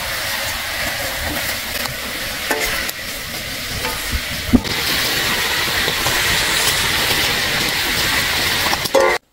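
Food sizzling as it fries in hot oil: a steady hiss with a few small clicks, cut off abruptly near the end.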